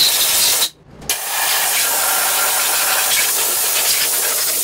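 Compressed-air blow gun hissing as it blasts air into the balance shaft bearing bore of a 4G63 engine block, clearing lint left by the shop towel before the bearing goes in. The blast cuts off briefly just under a second in, then resumes steadily.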